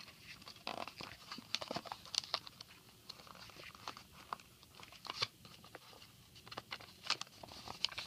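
Paper crinkling and crackling in irregular small clicks and rustles as a glued paper wall is pressed and smoothed by hand onto a cardboard carton.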